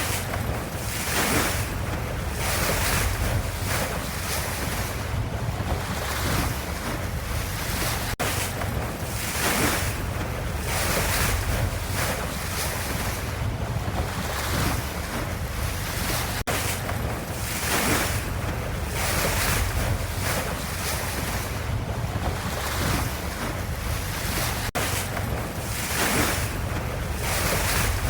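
Ocean waves washing in a continuous surf, swelling and easing every second or two, with a brief dropout about every eight seconds.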